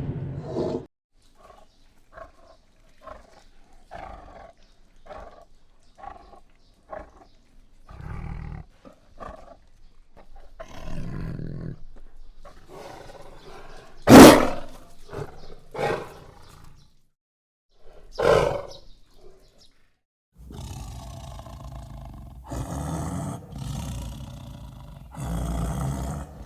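Tiger vocalising: short grunts at about one a second, then a sudden loud roar about fourteen seconds in, the loudest sound, followed by two shorter roars. Continuous rumbling growls near the end.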